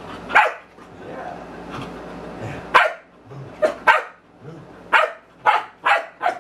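Dog barking in play: short, sharp barks, one about half a second in, then a quick run of barks through the second half.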